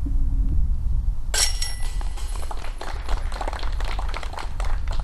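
A putted disc crashing into the steel chains of a DiscGolfPark basket about a second and a half in: a sudden metallic jingle that rattles on for a few seconds, over a low wind rumble on the microphone.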